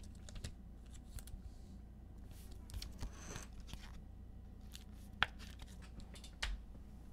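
Trading cards and pack wrappers being handled: faint scattered clicks and rustles, with a brief tearing or sliding rustle about three seconds in and a sharper click a little after five seconds.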